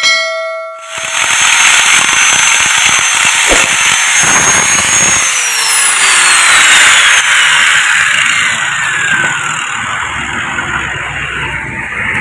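Angle grinder grinding the worn, grooved inner braking surface of a scooter's steel brake drum, resurfacing it. The motor's high whine holds steady, then falls in pitch about five seconds in as the grinder winds down, while the grinding noise carries on more softly.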